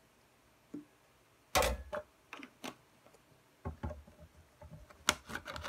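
Small glass bowl and plastic sauce bottle handled over a stainless steel tray: a sharp knock about a second and a half in, a few lighter taps after it, then a run of small clicks and taps near the end.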